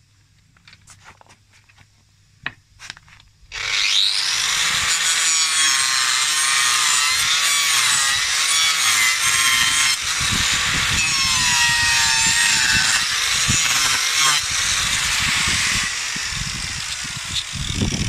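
Small 125 mm angle grinder fitted with a chain-saw disc, switched on about three and a half seconds in and cutting through plywood, its whining motor wavering in pitch under the load. A few light clicks and knocks come before it starts, and it eases a little near the end.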